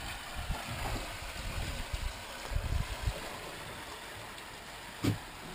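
Water rushing and gurgling along the hull of a sailboat under way, heard from inside the cabin, with a few low thumps and a sharper knock about five seconds in.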